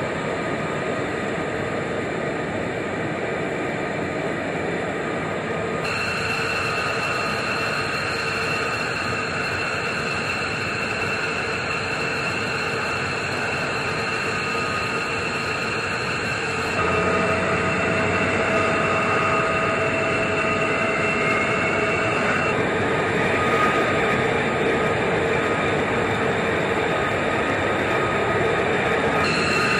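Jet engine running steadily, a high whine over a loud rushing noise; the sound changes abruptly several times, as between separate recordings.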